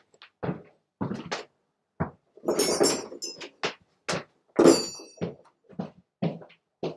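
A run of thuds and knocks, with a couple of brief metallic clinks a few seconds in, from someone moving about and handling objects out of view.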